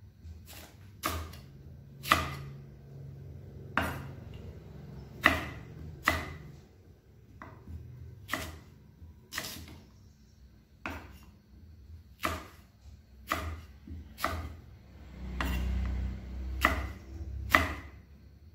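Kitchen knife slicing raw sweet potato into sticks on a thick round wooden chopping board, the blade knocking on the wood about twenty times at an uneven pace of roughly one cut a second. A low rumble lasts about a second near the three-quarter mark.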